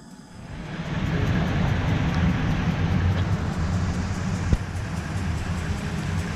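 Steady outdoor street noise with a low rumble, like traffic on a wet road, swelling in within the first second, with one brief knock a little past halfway.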